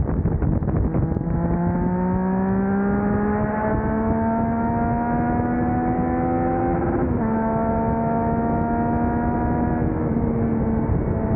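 Triumph Trident 660's inline-three engine running through a Blackwidow 200mm aftermarket exhaust as the bike accelerates. The note climbs steadily for about six seconds, drops sharply at an upshift about seven seconds in, then holds a steady cruise, dipping slightly again near the end.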